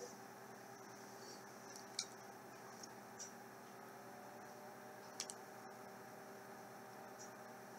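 Near silence: a steady faint room hum with a few short, faint clicks, the clearest about two seconds in and just after five seconds.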